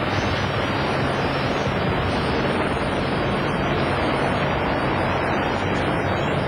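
Helicopter running steadily: engine and rotor noise, a dense even rush with a low steady hum underneath.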